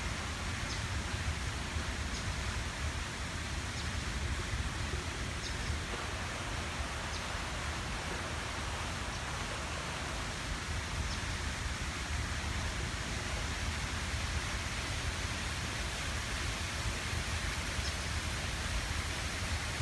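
Steady outdoor wind noise: a low, fluctuating rumble of wind buffeting the microphone under an even hiss.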